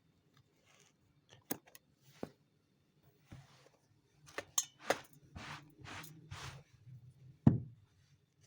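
Hand tools working on a leather shoe: scattered sharp clicks and taps, a run of short scraping strokes, and one louder knock near the end.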